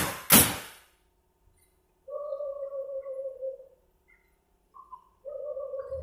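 Two loud sharp knocks of wood on wood about half a second apart, then two long, steady whistle-like tones of about a second and a half each, the second starting near the end.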